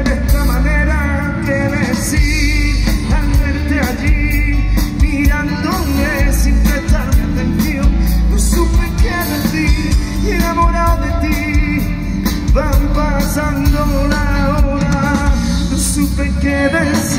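Live pop-rock band playing: a male lead voice singing held notes with a wavering vibrato over acoustic guitar, electric bass and a drum kit.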